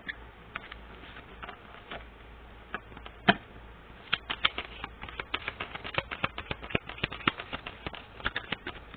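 Tarot cards being shuffled by hand: a few scattered card snaps, then a fast, irregular run of crisp clicks and flicks from about four seconds in.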